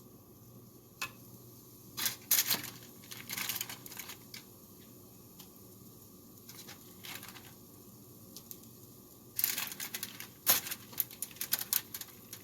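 Light clicks and taps of meatballs and utensils being handled as the meatballs are placed into a frying pan, in a cluster about two seconds in and a quicker run of clicks near the end.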